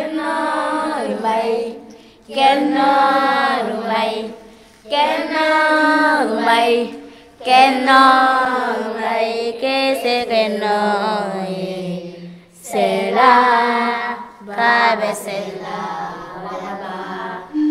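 Children singing a chant-like song in phrases of two to five seconds, with held notes and short breaths between them.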